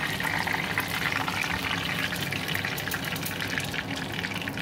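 Hot oil sizzling and crackling steadily around a bread-wrapped ice cream ball deep-frying in a small saucepan, a dense patter of fine pops.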